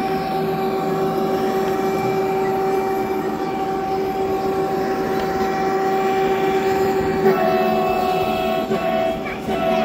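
Model electric locomotive of the ES64U2 type running along the layout track: a steady electric whine over a hum, stepping down slightly in pitch about seven seconds in.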